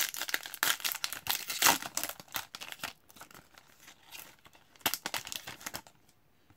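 Foil wrapper of a hockey card pack crinkling and tearing as it is ripped open by hand, loudest over the first three seconds, then a short rustle about five seconds in as the cards come out.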